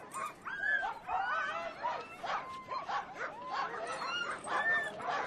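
A pack of Greenland sled dogs whining and yelping together, many short rising and falling cries overlapping without a break: restless dogs eager to run.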